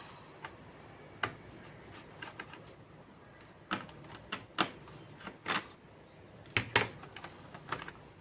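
Irregular small clicks and taps of laptop parts being handled and pried out during disassembly, with several louder clicks in the second half.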